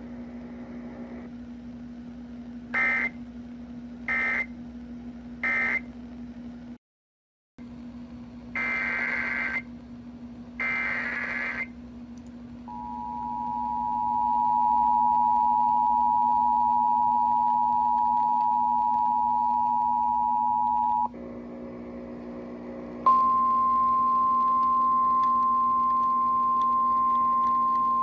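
Emergency Alert System tones over a radio broadcast. Three short screeching SAME data bursts close the previous alert, and two longer data bursts open the next. Then comes the two-tone EAS attention signal, held for about eight seconds, and after a brief gap a single steady alert tone, all over a low steady hum.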